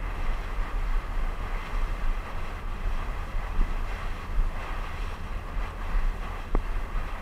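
Wind buffeting the microphone over the rushing, splashing water of a moving boat's churned wake.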